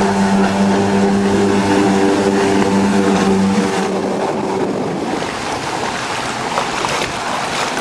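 Jet ski engine running at speed, a steady drone that fades about four seconds in, leaving a steady rushing noise.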